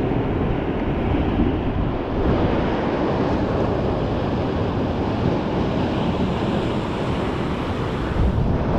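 Ocean surf breaking and washing over rocks in a steady rush, with wind buffeting the microphone.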